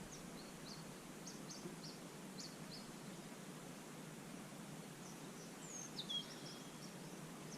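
Small birds chirping faintly over a steady outdoor background hiss: a run of short high chirps in the first three seconds, and a falling whistled call about six seconds in.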